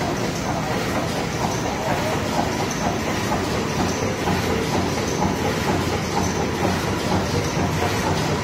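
A 12-roll wet wipes machine running, with a steady, fast mechanical clatter over a low hum.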